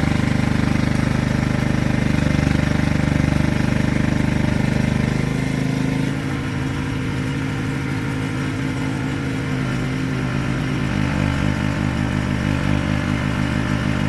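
An engine or motor running steadily at a low, even pitch. About five or six seconds in, its sound changes to a faster, regular pulsing.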